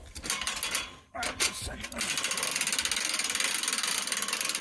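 Cable winch on a homemade log skidding arch being worked: a few separate clicks, then from about two seconds in a fast, steady ratcheting clatter as the winch cable is wound.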